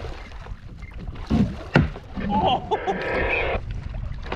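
Wind on the microphone and water slapping against a fishing kayak's hull, with two sharp knocks about a second and a half in and a short raspy buzz around three seconds in.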